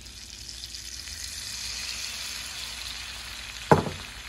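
Tomato salsa poured into hot melted butter in a pan, sizzling and spattering, the hiss growing louder as the sauce spreads. A single sharp knock a little before the end.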